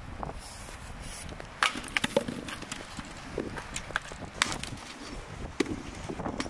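Axe chopping into a dry log laid on a wooden chopping stump: a handful of sharp woody knocks, irregularly spaced, the loudest a little past the first second and again past the fourth.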